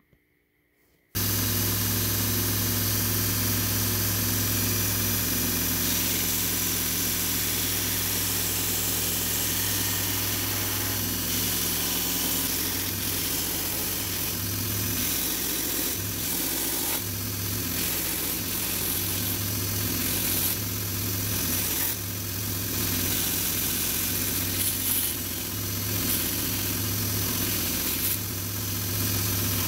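Belt grinder running with a steady motor hum, starting abruptly about a second in. From about twelve seconds in, the stabilized red cedar handle scales of a knife are pressed against the moving belt, adding an uneven sanding sound that comes and goes.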